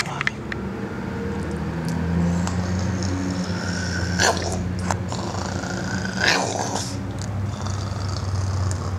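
Boston terrier growling in play, a steady low rumble broken by two short, sharper sounds about four and six seconds in.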